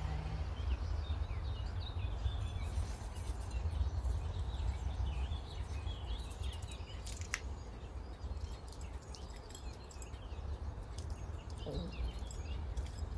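Small birds chirping on and off over a steady low rumble, with a few faint clicks.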